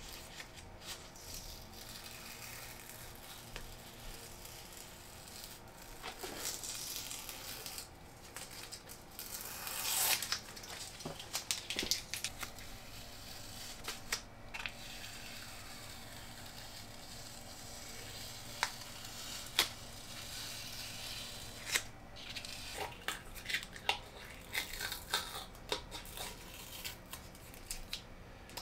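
Blue painter's masking tape being peeled off painted metal and crumpled: tearing and crinkling with scattered small crackles and clicks, coming thicker toward the end.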